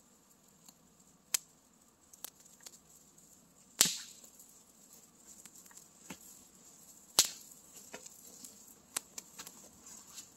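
Wood campfire crackling, with three loud sharp pops spread through it and smaller snaps in between.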